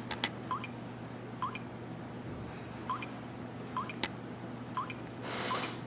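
Faint short rising plinks, roughly one a second at uneven spacing, with a few sharp clicks over a low steady hum.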